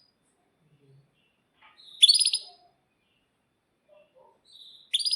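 Domestic canary singing: two short phrases of fast, high, rattling trills, about two seconds in and again near the end, with quiet between.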